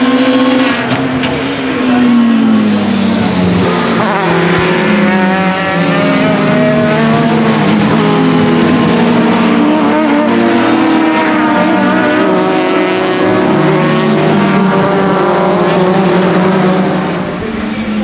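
Several 2-litre Super Touring racing cars, among them a Volvo S40, running hard at racing speed, their engines revving and overlapping with pitch rising and falling through the gears. The sound drops away about a second before the end.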